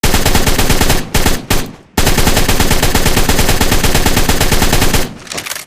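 Assault rifle sound effect: automatic fire in bursts. A burst of about a second, two short bursts, then a long burst of about three seconds that tails off near the end.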